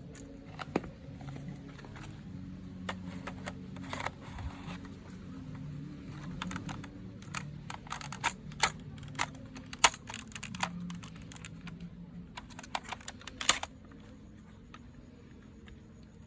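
Irregular sharp plastic clicks and taps of a toy gun and its packaging being handled, coming thick and fast from about halfway through, over a low steady hum.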